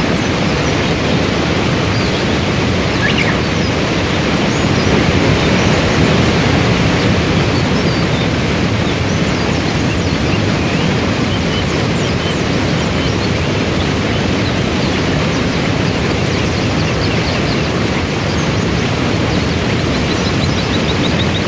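Waterfall and river rapids rushing: a loud, steady noise of falling and churning white water.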